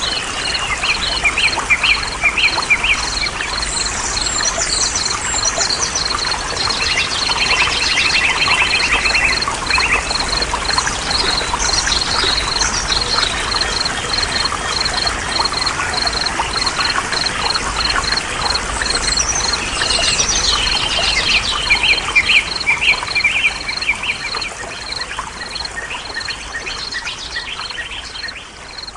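Several birds chirping, trilling and calling over a steady background hiss, with a high pip repeating about two or three times a second throughout; it fades down near the end.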